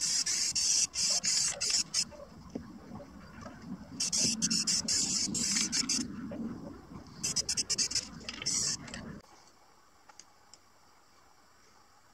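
Aerosol spray paint can hissing in bursts: about two seconds of spraying, a break, about two more seconds, then a few short spurts, the last about nine seconds in.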